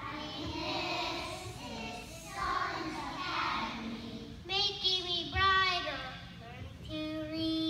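Young children singing a song together, with a few longer held notes about halfway through and near the end.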